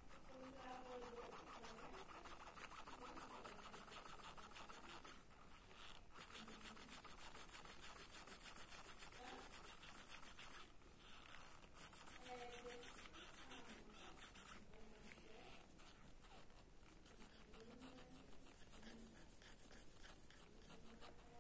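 Faint scratching of a mechanical pencil's graphite lead on paper in quick, short shading strokes, with a few brief pauses.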